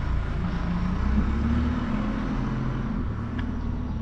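Semi-truck diesel engine running at low revs, its note wavering slightly as the truck is manoeuvred.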